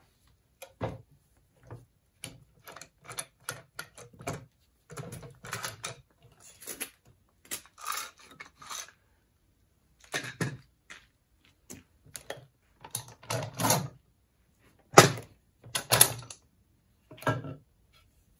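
Parallel bar clamps being unscrewed and taken off a glued-up padauk blank: an irregular string of clicks, rattles and knocks from the clamp handles, jaws, steel bars and wood, the loudest knock about three quarters of the way through.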